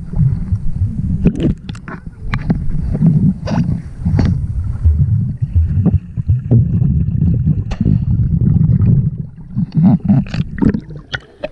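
Muffled underwater sound picked up by a submerged camera: a steady low rumble of moving water with scattered clicks and knocks.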